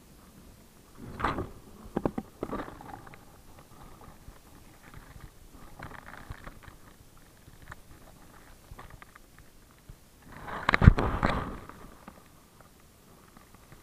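Handling of a Specna Arms SA-S02 airsoft sniper rifle during a magazine change: sharp clicks and knocks of the magazine and rifle near the start, rustling of gear and a pouch in the middle, and a louder cluster of knocks about eleven seconds in.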